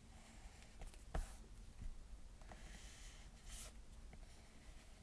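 Faint stylus taps and short scratchy strokes on a tablet screen while lines are inked: a sharp tap about a second in, and soft brief strokes at about two and three and a half seconds.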